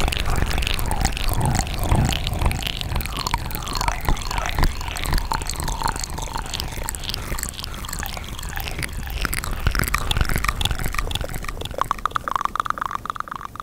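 Wet ASMR mouth sounds very close to the microphone: tongue clicks and lip smacks in a quick irregular stream, turning into a fast even run of clicks near the end.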